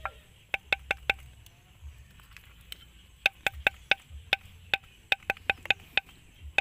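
Metal spoon tapping and knocking against the rim and inside of a mortar while sticky palm sugar paste is worked off it. The result is about fifteen sharp clicks, each with a short ring, in quick runs of two to five.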